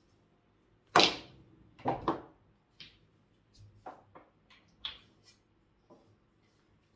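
A shot on a mini pool table: the cue strikes the cue ball sharply about a second in, followed about a second later by two clicks of balls hitting each other and the cushions, then a scatter of lighter clicks and knocks.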